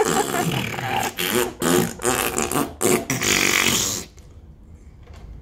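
Loud breathy mouth noises from a person, coming in quick bursts and stopping suddenly about four seconds in.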